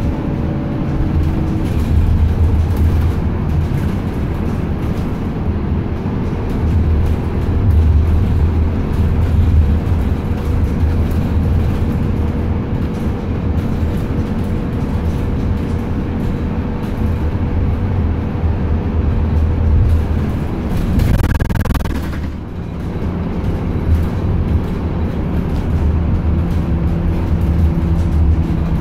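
Steady rumble and road noise of a transit bus heard from inside the passenger cabin, with engine hum tones that shift as it changes speed, and a brief hiss about three quarters of the way through.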